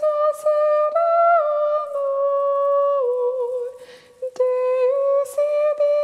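A single voice humming a slow melody in long held notes that step up and down. Short breaths are audible between phrases, and a wavering note comes near the end.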